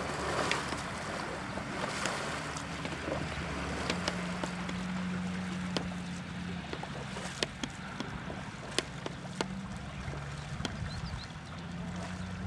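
Canoe on the water with wind on the microphone and water noise, under a low steady drone that wavers in pitch, and a dozen or so sharp knocks scattered through.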